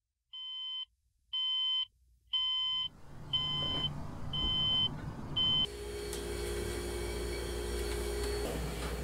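Electronic alarm clock beeping: a high, steady beep about once a second, six times, then cutting off. After it comes a low, steady hum.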